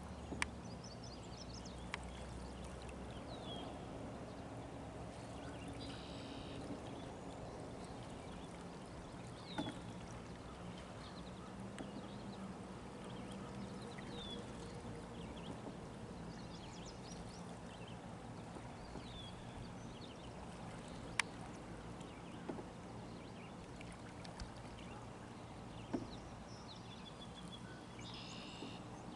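Faint water sounds of an otter tail canoe paddle being stroked through calm water, under a steady outdoor hiss. Short high bird chirps come every few seconds, and a few sharp clicks stand out.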